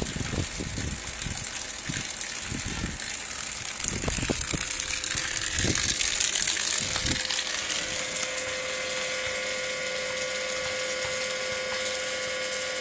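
Rule 500 gph 12-volt electric bilge pump running, pumping water out of a canoe hull, its outflow jet splashing onto the ground. From about eight seconds in the pump motor's steady hum comes through clearly.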